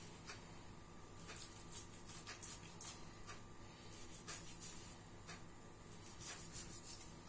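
Faint sounds of a kitchen knife slicing fat away from a raw pork loin on a wooden cutting board: a few short scraping strokes and scattered light ticks, over a low steady hum.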